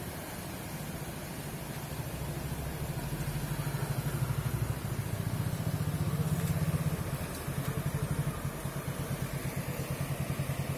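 A small engine idling with a steady, rapid low beat, growing louder after about two seconds.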